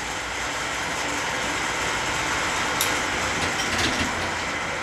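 A 1955 Schaublin SV-51 milling machine running, its end mill cutting the rounded end of a metal plate held in a four-jaw chuck: a steady cutting hiss, with a few sharp ticks about three seconds in.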